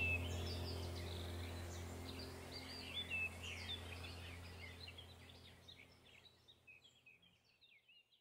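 Quick, high bird chirps over a steady low drone, the whole fading out gradually to silence near the end.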